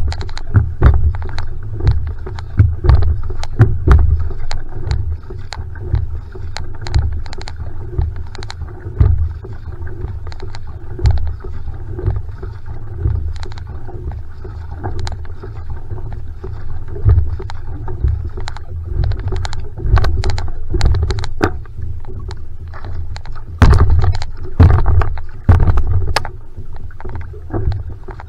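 Single-person outrigger canoe (va'a) being paddled hard: the single-bladed paddle splashes in and out of the water in a steady stroke rhythm over a continuous low rumble. The splashing grows louder for a few seconds near the end.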